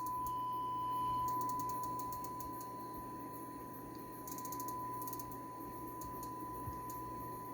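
Steady 1 kHz sine test tone running through the Marantz 2500 receiver during a power-output test, over a faint low hum and hiss. Short runs of faint clicking come about a second in and again about four to five seconds in.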